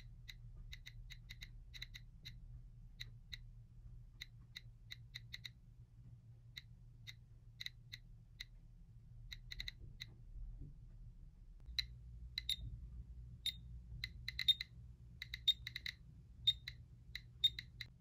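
GQ GMC-300S Geiger counter clicking from its speaker, one short high click for each detected count. The clicks come at random intervals, a few a second, and grow louder and more frequent in the second half as the count rate climbs.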